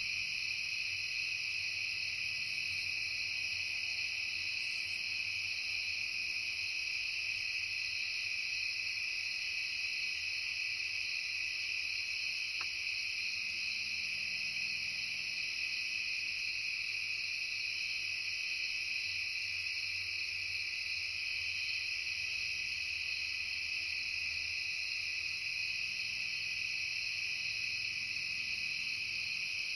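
Late-summer chorus of insects, several kinds calling at once in a steady, high, unbroken drone at a few different pitches.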